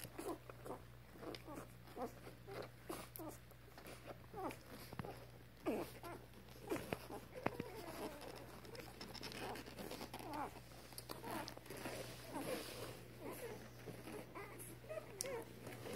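Newborn puppies nursing, making faint, frequent little squeaks and grunts several times a second.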